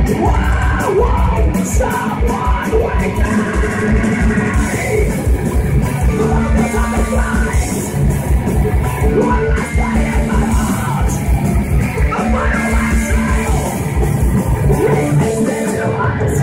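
Thrash metal band playing live at full volume: heavily distorted electric guitars over a rapid, pounding kick drum and cymbals, heard from the audience floor.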